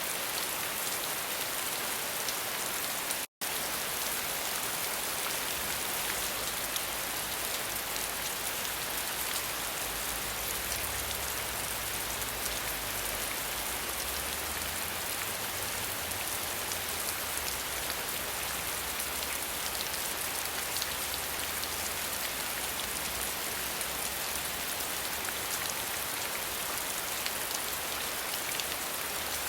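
Steady rain falling, a dense even hiss of drops. The audio drops out for a split second about three seconds in.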